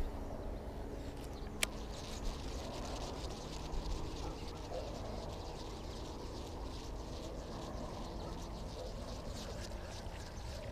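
Baitcasting reel on a retrieve: one sharp click about a second and a half in as the reel engages, then a fast, faint ticking as the handle is wound, over a low rumble of wind on the microphone.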